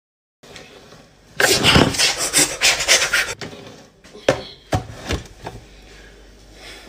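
Rough scraping and rubbing for about two seconds, with quick repeated strokes, followed by a few sharp knocks.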